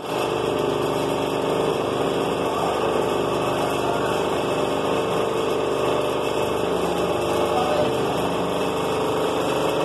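Steady drone of running machinery, an engine or motor humming at an even pitch with no change.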